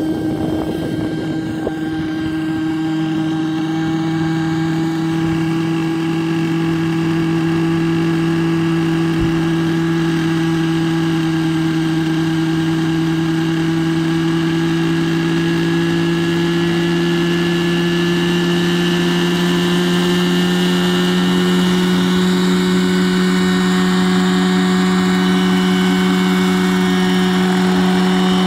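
Radio-controlled scale Bell 212 helicopter's engine and rotor spinning up on the ground for lift-off. A steady drone whose pitch rises slowly.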